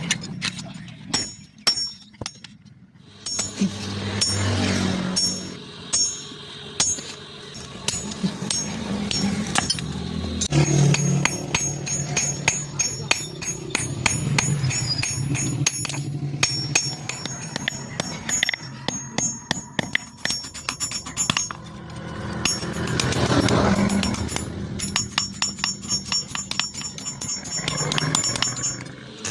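Background music with a voice over it and many sharp clicks throughout.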